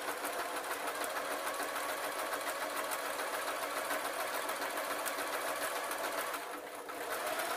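Singer electric sewing machine stitching steadily at a fast even rate as fabric is fed around a curve. It eases off briefly near the end, then runs on.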